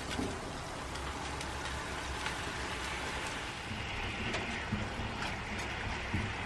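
Soy-based sauce with caramelized onions bubbling and sizzling in a frying pan as it reduces, a steady fine crackle, with soft low knocks of a silicone spatula stirring through it in the second half.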